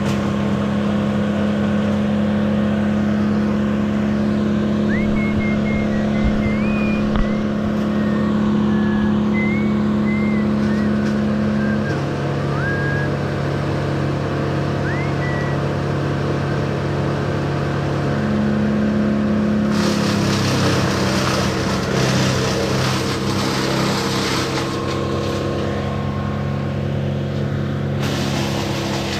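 A motor engine running steadily at a constant speed, its pitch stepping a couple of times. A rough rushing noise rides on top of it for several seconds in the latter part.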